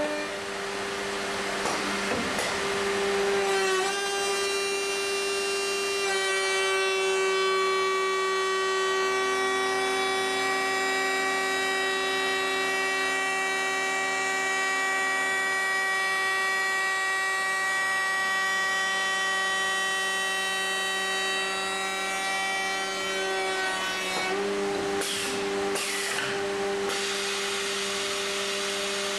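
High-speed router motor of a CNC stair router whining steadily as its bit cuts a notched profile into a wooden stringer. The cutting sounds rougher and noisier in the first few seconds and again near the end.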